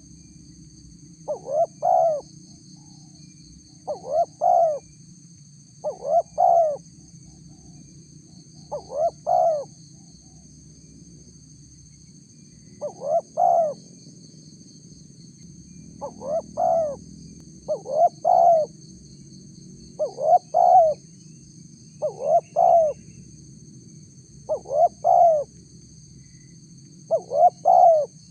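Spotted dove (tekukur) cooing: a short multi-note coo phrase repeated about every two to three seconds, eleven times.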